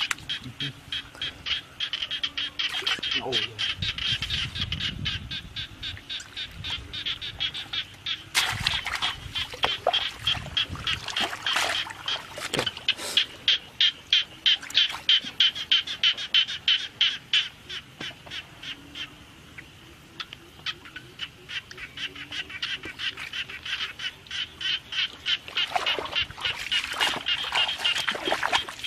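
Quick, evenly repeated short animal calls, several a second, thinning briefly about two-thirds of the way through.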